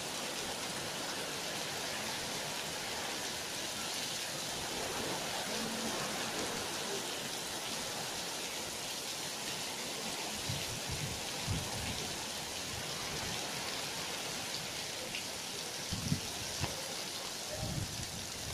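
Heavy wind-driven rain pouring down in a steady hiss. A few brief low rumbles come through past the middle and again near the end.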